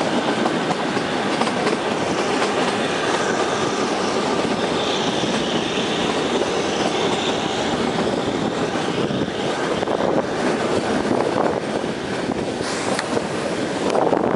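Narrow-gauge Kalka–Shimla toy train running, heard from inside an open-windowed carriage: a steady rumble and clatter of wheels on the rails. Around the middle a faint high wheel squeal rises as the train rounds a curve.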